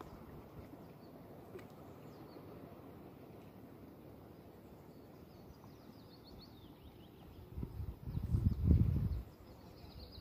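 Outdoor ambience of wind on the microphone with small birds chirping high and quick from about halfway through. About eight seconds in, a loud low rumble of a wind gust buffeting the microphone.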